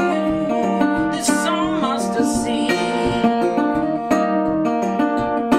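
Acoustic guitar strummed and picked in a live blues song, keeping a steady rhythm with sharp strokes, with a short wavering high line over it about a second in.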